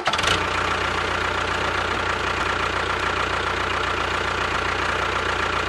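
Small motor of a DIY model tractor running steadily: an even hum with a constant high whine and a fast, fine rattle.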